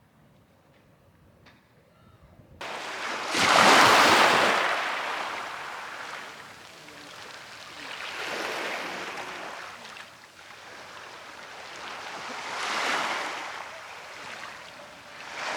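Sea waves washing in, one swell of surf about every four to five seconds. The surf starts suddenly a couple of seconds in, after near silence.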